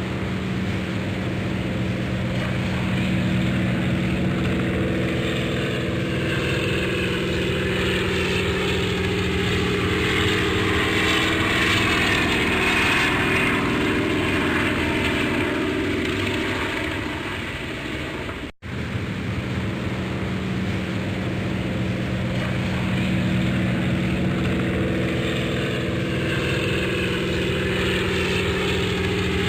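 Propeller airplane engine running steadily, with a rushing noise that swells and fades. There is a brief dropout about two-thirds of the way through, after which the same sound starts over.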